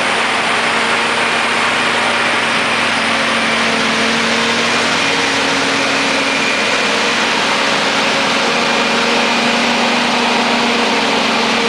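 John Deere 7950i self-propelled forage harvester running steadily while harvesting maize: a loud, even machine noise with a steady engine hum underneath.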